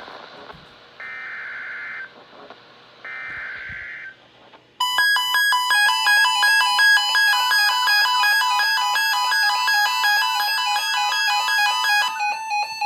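Weather radio alert header: two one-second bursts of SAME data tones, a second apart, about one and three seconds in. From about five seconds in, a much louder, fast repeating electronic alert melody of several beeping tones runs on.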